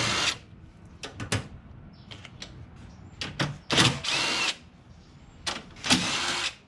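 Electric drill with a screwdriver bit running in short bursts of about half a second, three times, backing out the screws that hold a plastic cover by the headlight, with a couple of sharp clicks between the bursts.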